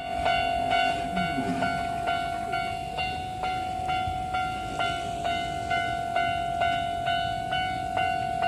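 Japanese railway level-crossing alarm bell ringing in a steady repeating clang, about two strikes a second, warning that a train is coming.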